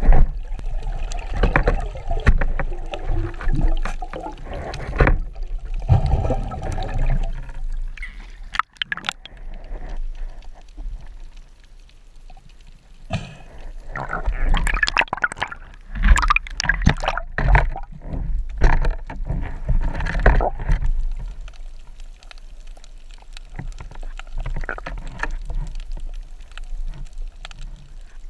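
Water sloshing and gurgling against a camera's underwater housing, with irregular knocks and clicks. It is busiest in the first seven seconds and again around the middle, and quieter near the end.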